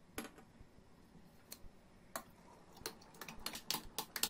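Spoon stirring fermenting hawthorn mash in glass jars: faint, scattered clicks and taps of the spoon against the glass, coming more often near the end.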